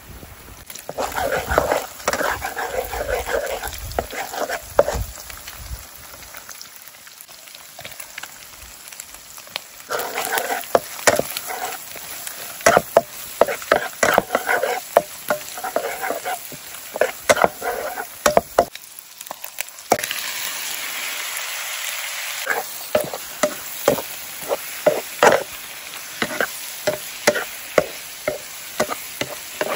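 Eggs frying in a non-stick wok, sizzling while a wooden spatula stirs them, with many sharp scrapes and taps of the spatula on the pan. The sizzle grows louder about twenty seconds in, around when more ingredients go in.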